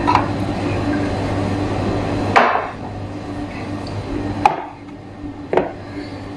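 A few sharp knocks of ceramic dishes being set down and moved on a granite countertop, the loudest about two and a half seconds in, over a steady low hum that drops away partway through.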